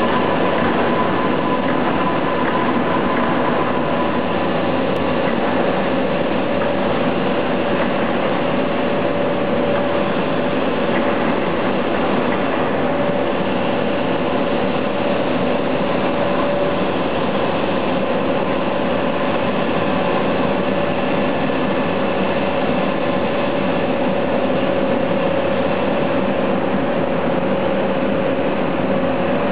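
Flux-cored welding wire forming and drawing line running: steady machinery noise with a constant mid-pitched hum.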